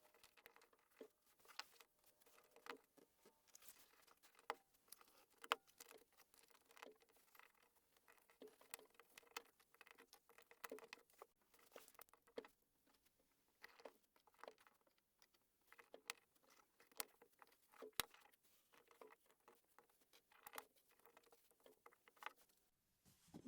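Plastic LEGO pieces clicking and tapping as they are handled and snapped together, in faint, irregular, quick clicks.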